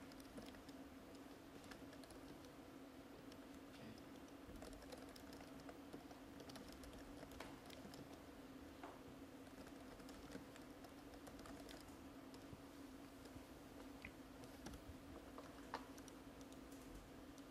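Faint tapping of a laptop keyboard: scattered keystrokes as text is typed, over a steady low hum.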